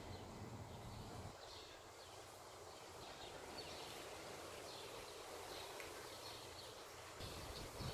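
Faint background ambience with small birds chirping at intervals.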